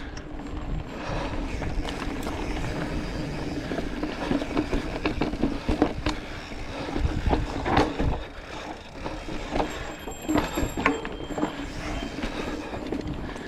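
Mountain bike riding over a rough dirt singletrack: tyres grinding over dirt and rocks under a steady rumble, with frequent irregular clicks and rattling knocks from the bike's chain and frame as it bounces over bumps.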